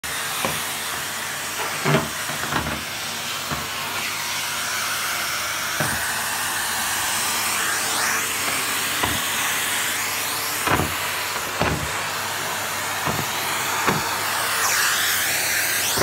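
Numatic Henry cylinder vacuum cleaner running: a steady rush of suction with a faint hum, the pitch of the airflow wavering as the hose nozzle moves over the carpet, with a few short knocks scattered through.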